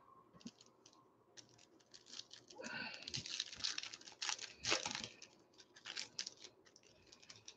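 Foil wrapper of a baseball trading-card pack being torn open and crinkled by hand, a string of crackling rips that is busiest around the middle.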